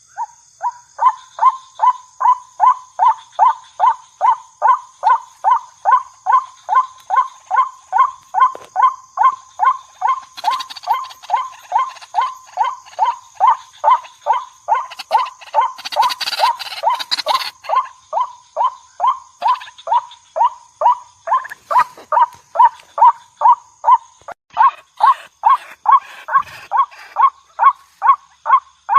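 Waterhen (jal murgi) calling: one short, loud note repeated about twice a second, each note dropping in pitch, kept up without a break.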